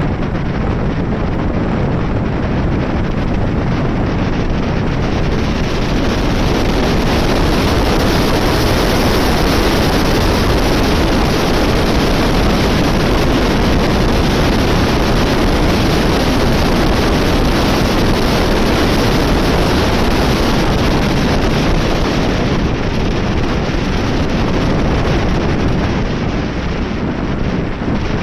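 Loud, steady wind noise buffeting the camera's microphone on a moving motorcycle. It swamps the engine and road sounds, and grows a little louder for a stretch in the middle.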